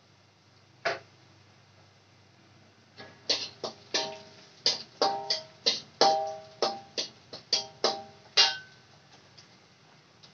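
Metal spatula striking and scraping a steel wok while stir-frying, the wok ringing at the same pitch with each hit. There is one clank about a second in, then a quick run of clanks at about three a second that stops well before the end.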